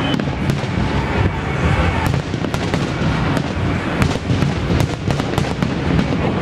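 Fireworks display: aerial shells bursting in a dense, irregular series of bangs and crackles over a continuous low rumble.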